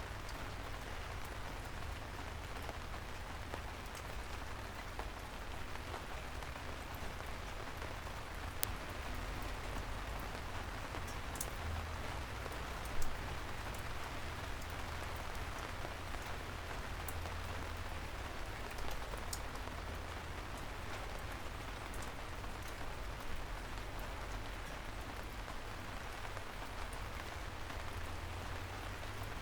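Soft, steady rain falling on city streets, with many small drips and a few louder single drops, the loudest about halfway through, over a low steady rumble.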